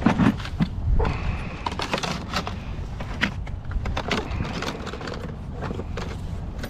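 Footsteps and handling noise on shoreline rocks: irregular clicks, knocks and scuffs over a steady low rumble.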